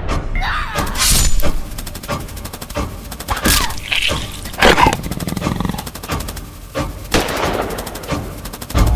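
Trailer sound design: a series of loud, sudden hits, crashes and booms over dramatic music, with fast runs of rapid ticking hits between the biggest strikes.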